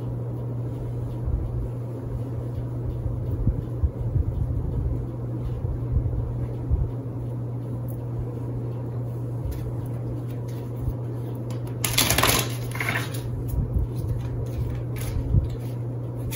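A steady low hum, with scattered faint clicks and knocks and a short burst of hissing noise about twelve seconds in.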